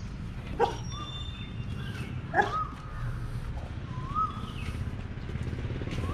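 Birds calling: two sharp cries that drop steeply in pitch, about two seconds apart, and several short rising-and-falling chirps, over a steady low hum.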